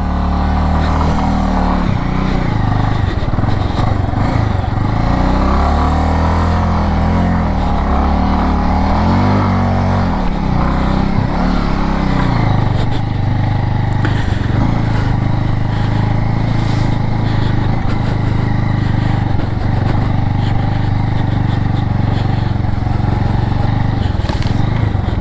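Bajaj Avenger 220 motorcycle's single-cylinder engine running while ridden slowly over a rough grass track. Its revs rise and fall through the first half, then settle to a steady pitch about halfway through.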